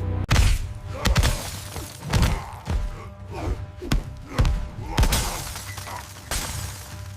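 A run of crashing, shattering impact sound effects, roughly one a second, with swooping tones between them, over background music.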